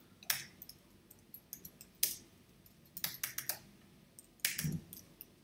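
Keystrokes on a computer keyboard as a short phrase is typed: irregular single clicks with a quick run of them about three seconds in.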